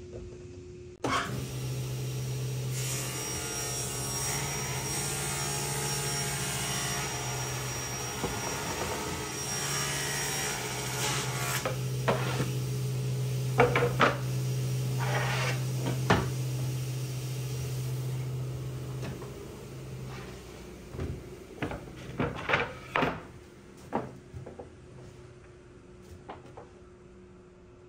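Cabinet table saw switched on and running with a steady hum while its blade cuts through a plywood panel. It spins down about twenty seconds in, followed by several knocks and clacks of plywood pieces being handled on the saw table.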